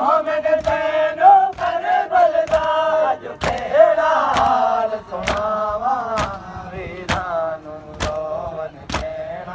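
A man's voice reciting a noha, a sung mourning lament, with the strong sharp slaps of men beating their chests in matam keeping time about once a second.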